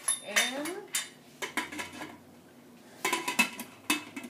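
Stainless steel pot lid clanking against a tall stockpot as it is handled and set in place, a series of metallic knocks, some ringing briefly, with a cluster of clanks about three seconds in.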